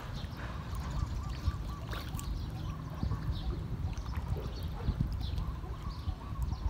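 Water sloshing and splashing at the surface as a dense school of fish churns and jostles for food, with many small wet clicks and slaps. A steady low rumble runs underneath, and faint bird-like chirps sound over it.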